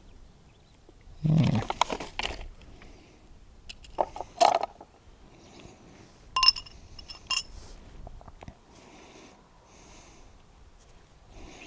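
Metal parts of a serpentine-belt tensioner tool kit being handled: a rustle and knock about a second in, a few clicks a little later, then two short ringing metallic clinks about a second apart.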